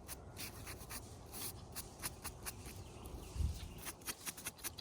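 Fingers rubbing and scraping dirt off a freshly dug metal relic, a run of short, irregular scratchy strokes, with one low thud about three and a half seconds in.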